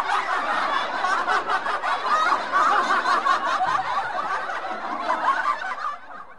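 Laughter, many voices overlapping, cutting off abruptly about six seconds in.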